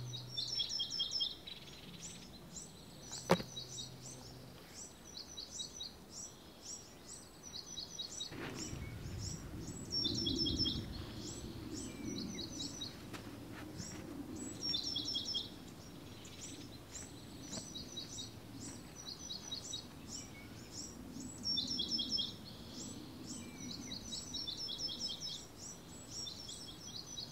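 Small birds singing: quick series of high chirping notes, repeated again and again. A single sharp click comes about three seconds in, and a faint low rumble joins about eight seconds in.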